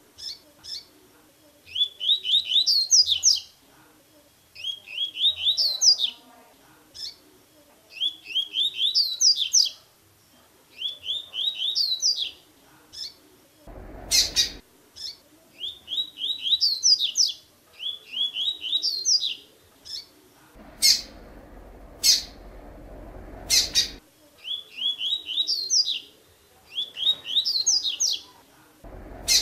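Double-collared seedeater (coleiro) singing the 'tui-tui' song type, repeating the same short phrase about every two seconds: a quick run of rising notes that ends in a few higher notes. A few sharp clicks come between phrases.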